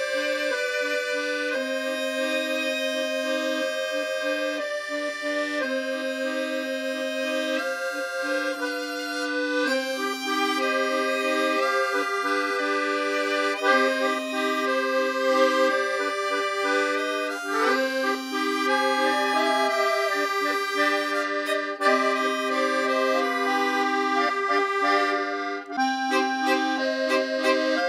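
Background music: an accordion tune in French musette style, a duet of held melody notes over a repeating lower accompaniment.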